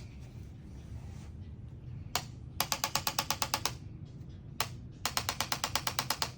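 Handheld chiropractic adjusting instrument clicking: twice, a single click followed by a run of rapid even clicks, about ten a second, lasting about a second.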